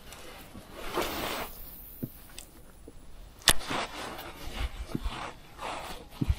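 Soft rustling and scraping from an angler's hands working a baitcasting rod and reel while retrieving a lure, with scattered light knocks and one sharp click about three and a half seconds in.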